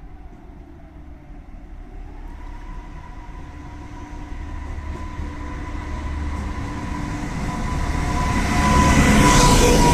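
Passenger train hauled by a DB class 245 diesel locomotive approaching with its brakes squealing, a steady high-pitched tone over the rumble of the wheels. The sound grows louder throughout and is loudest near the end as the train draws level.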